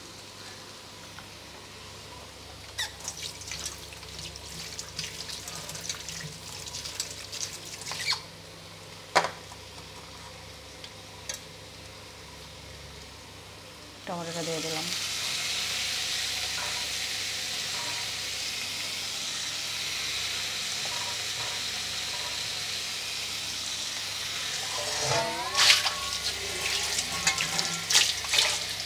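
Metal spatula scraping and tapping against a kadai of frying potatoes and onions, then about halfway through a sudden steady sizzle as chopped tomatoes hit the hot oil. Near the end the spatula scrapes and clanks again as the pan is stirred.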